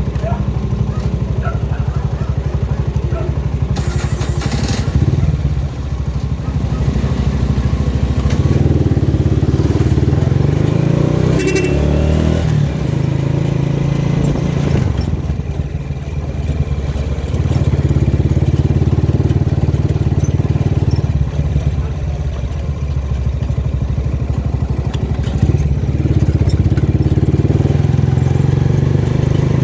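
A motor vehicle's engine running on the road, its hum swelling and easing as it speeds up and slows down.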